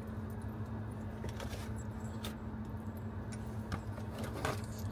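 Steady low hum of a car's idling engine heard inside the cabin, with scattered light clicks and jingles of small objects being handled.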